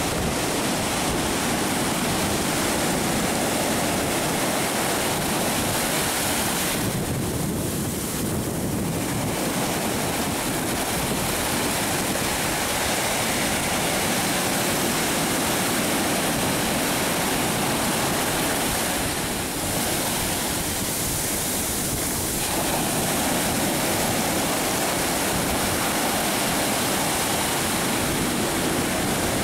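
Surf breaking and washing up the beach: a steady rush of water that eases briefly twice.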